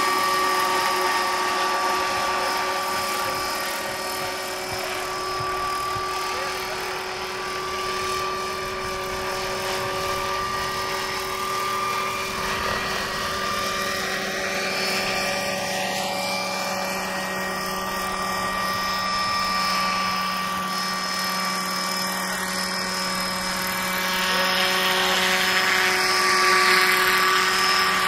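Radio-controlled scale model helicopter in flight: a steady high whine from its drive over the rotor noise, getting louder near the end as it comes in low and close.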